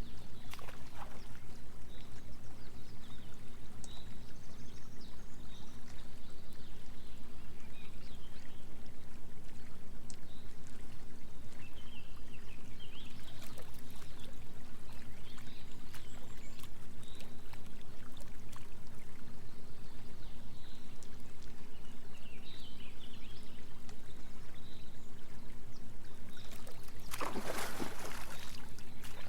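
Steady low droning tones of binaural beats, pulsing rapidly and evenly, over a small waterfall trickling and splashing into a pond. Near the end a louder rush of splashing water.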